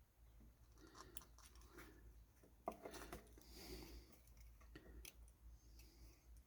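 Faint, scattered clicks and small rustling taps of an electrolytic capacitor and a kit circuit board being handled as the capacitor's leads are fitted, with one sharper click a little under three seconds in.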